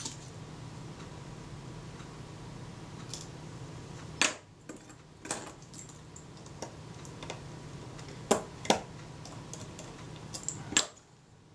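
Small metal parts clicking and tapping as the rangefinder unit and its screws are fitted onto a Kodak Retina IIIc camera body: a few sharp clicks at irregular intervals over a steady low hum.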